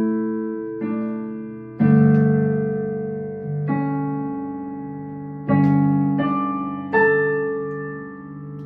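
Yamaha MOXF6 synthesizer playing a piano sound layered with a pad: a slow run of about seven sustained chords, each struck and left to ring and fade before the next.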